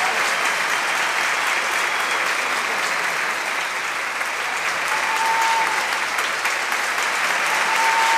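Theatre audience applauding steadily, with two short held high tones over it, about five seconds in and near the end.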